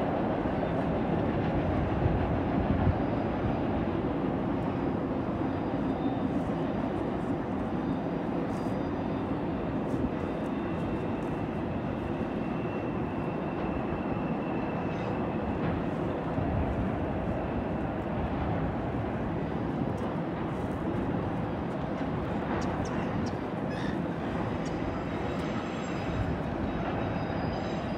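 Freight train rolling steadily across a bridge: a continuous rumble of wheels on rails that holds an even level throughout.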